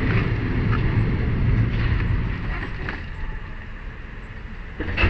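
Low rumble of a vehicle in motion that fades away after about two seconds, followed by a sharp knock near the end.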